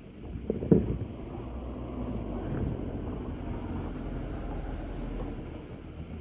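Honda XRE 300's single-cylinder engine running steadily through its stock exhaust, with a couple of short louder pops in the first second.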